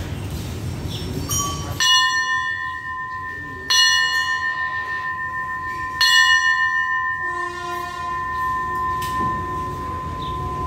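A metal bell struck three times, about two seconds apart, each strike ringing on with a clear tone: the station's departure signal for the waiting train. From about seven seconds in, a steady lower tone joins the ringing and holds.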